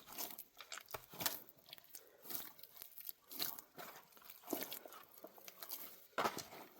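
Irregular light crunching and crackling, many small uneven snaps and rustles.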